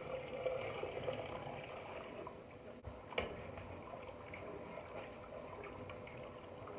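Water poured into an enameled cast-iron Dutch oven over chopped vegetables, then sloshing as the pot is stirred with a metal spoon, with a single knock of the spoon about three seconds in.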